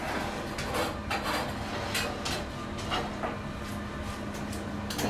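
Scattered knocks and clinks of kitchen utensils and dishes being handled, over a steady low hum.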